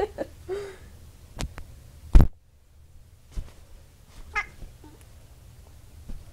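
Ginger domestic cat giving a couple of short cries, about half a second and four and a half seconds in, amid several sharp clicks and knocks, the loudest a knock about two seconds in.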